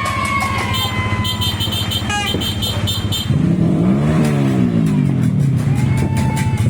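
Yamaha R15's single-cylinder four-stroke engine idling steadily. About three seconds in it is revved once, the pitch rising and then falling back to idle.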